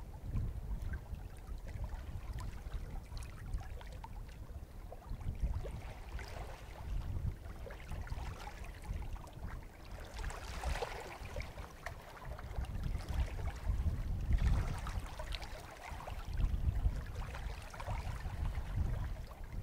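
Small lake waves lapping and washing over rounded shore stones, with a few louder hissing washes about ten and fifteen seconds in, over a steady low rumble.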